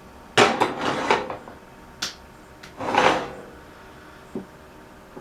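Gear being handled and set down: two loud bursts of clattering and rattling, the first about half a second in and the second around three seconds in, with single sharp knocks between and after.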